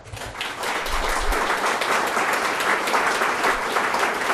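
Audience applauding, the clapping swelling over the first half second and then holding steady.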